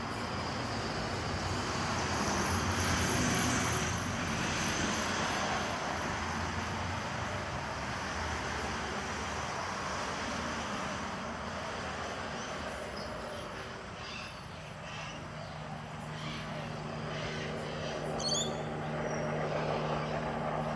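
Passing road traffic, swelling in the first few seconds and then easing. About two-thirds of the way through a steady low hum sets in, and a brief high chirp sounds near the end.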